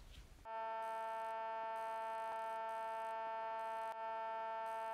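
A steady electronic tone with several pitches sounding together, starting about half a second in and holding at an even level, with a brief dip near four seconds.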